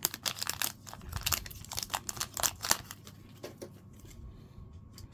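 Upper Deck Artifacts trading-card pack wrapper crinkling and tearing as it is opened. It is a quick run of sharp crackles for about three seconds, then fainter handling noises.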